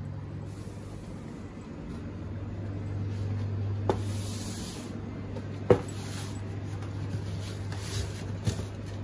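Steady low hum of refrigerated display freezers, with a brief hiss about four seconds in and a few sharp knocks, the loudest just before six seconds in.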